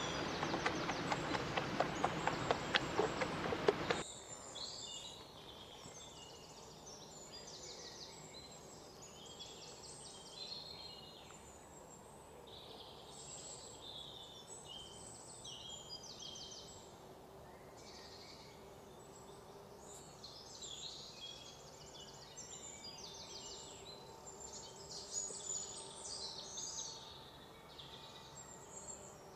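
A fork beating eggs against a pot: a rapid, busy clicking that stops suddenly about four seconds in. After that, insects and birds chirp and trill.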